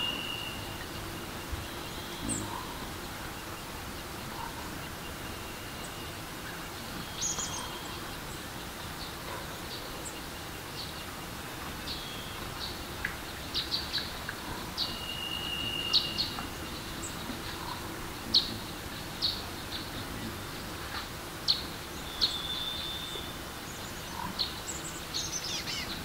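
Rushing stream running steadily over rocks, with songbirds chirping in short sharp calls over it, more often in the second half, and a few brief held whistles.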